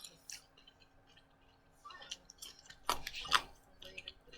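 Scattered small clicks and taps, the loudest pair about three seconds in.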